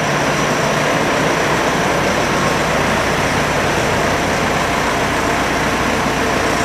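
Foton TM light box truck's engine running steadily.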